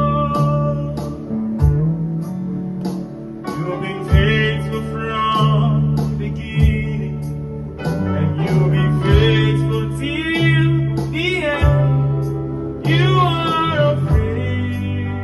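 Worship song: guitar and bass with a regular beat, and a voice singing over them from about four seconds in.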